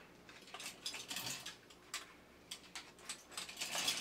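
Light metallic clicks and scrapes of a small hand tool prying up and bending the folded tabs on a tin toy robot's sheet-metal head. The clicks come in a cluster about a second in and another near the end.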